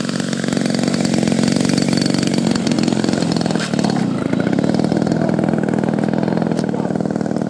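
The DL56 two-stroke gasoline engine of a giant-scale Jamara Yak 54 model plane, running steadily with its propeller as the plane flies close by, a little louder about a second in.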